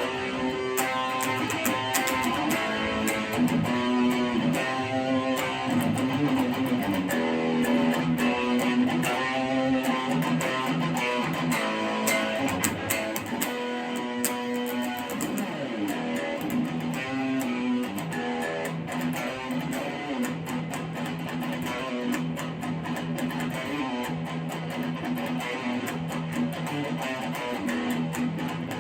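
Ibanez Gio electric guitar being played, a continuous run of notes and chords.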